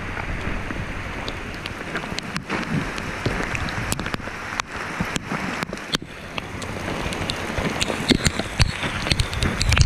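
Steady rain with wind on the microphone, and irregular crunching clicks of boots walking on a wet gravel driveway.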